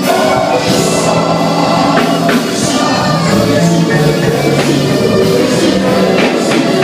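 Loud worship music: a band with drums and guitar playing, with voices singing.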